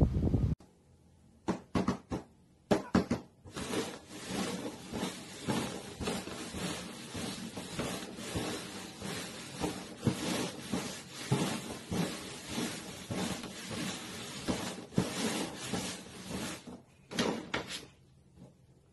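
Plastic cups being slid, tapped and set down on a cardboard box top: a rapid, uneven run of knocks and scrapes that starts after about a second and stops about a second before the end. A brief burst of wind noise cuts off in the first half second.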